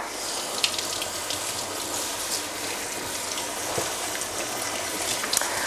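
Kitchen tap running steadily into a sink while hands wash plant roots under the stream, with a few faint clicks.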